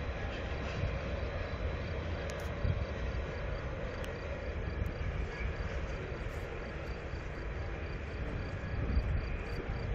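Insects chirping in a steady, regular rhythm, about three short high chirps a second, over a constant low rumble and hiss.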